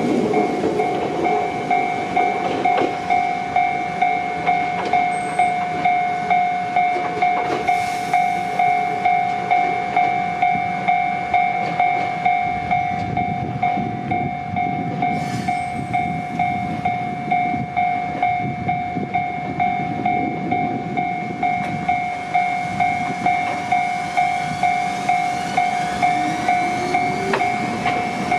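A warning bell ringing steadily, about two strikes a second, like a Japanese level-crossing alarm. Under it, Ichibata Electric Railway electric trains run over the rails, and near the end there is a faint rising motor whine as a train pulls away.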